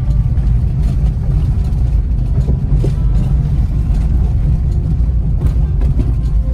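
A car driving at low speed, heard from inside: a steady low rumble of tyres and wind.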